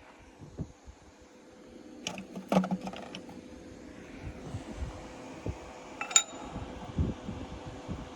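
Scattered metal clinks and knocks as steel bearing races and tools are handled, with a cluster of knocks a little past two seconds in and one ringing metallic clink about six seconds in. A steady hum and hiss grows from about halfway through.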